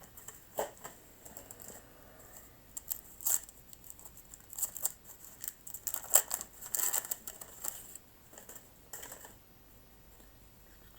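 Rustling and crinkling of 1985 Topps baseball cards and wax-pack paper being handled, in irregular bursts that are busiest in the middle.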